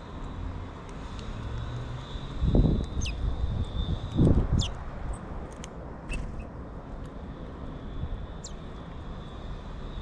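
Outdoor ambience with a steady, distant low engine rumble. A few short, thin, falling bird calls sound about three, four and a half and eight and a half seconds in. Two loud, low bursts come about two and a half and four seconds in.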